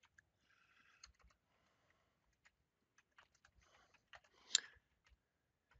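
Faint typing on a computer keyboard: scattered soft key clicks, with one louder short noise about four and a half seconds in.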